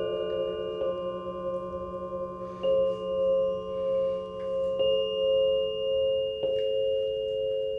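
Electro-acoustic sound installation playing sustained, bell-like tones that ring on and slowly swell and fade, with a new tone struck four times, about every two seconds. The discrete tones are generated by people entering the library.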